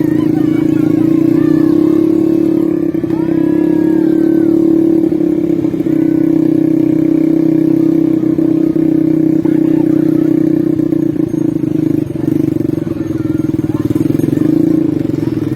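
ATV engine running steadily, a loud continuous drone with little change in pitch.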